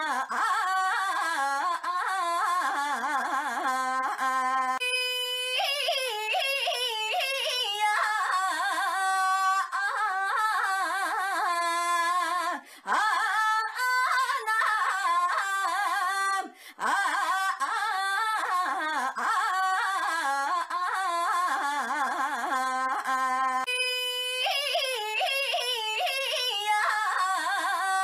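A young woman's high-pitched voice calling 'ainya' over and over in a near-continuous, edited repetition, the pitch wavering up and down in a sing-song, yodel-like way, with two brief breaks.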